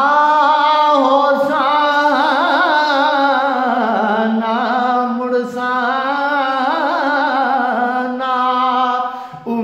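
A man singing a Punjabi Sufi kalam solo, drawing one word out into a long held note with wavering, ornamented pitch. There is a brief dip about five and a half seconds in and a break just before the end.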